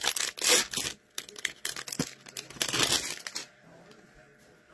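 Foil wrapper of a hockey card pack being torn open and crinkled by hand, in a quick run of crackling rips that stops about three and a half seconds in.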